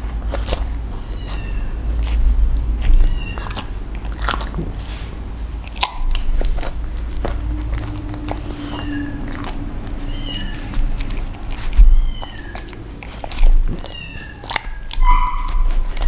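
Alaskan Malamute chewing and biting into crusty bread close to the microphone: wet chewing with sharp crunches and clicks of the crust, loudest about twelve seconds in. Short high chirps repeat faintly in the background.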